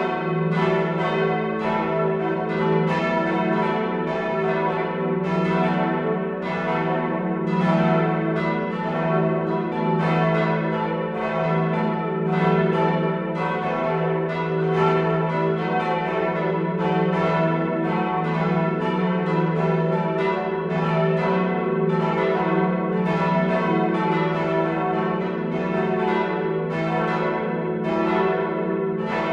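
Several church bells of the Martinskirche ringing together, their strikes overlapping in an irregular pattern, with a steady low hum from the long decay of the bells.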